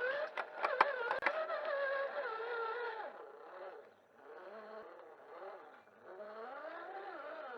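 Electric motor and gearbox of an RC rock crawler whining, the pitch rising and falling with the throttle. Several sharp clicks and knocks in the first second or so, and a brief lull about four seconds in.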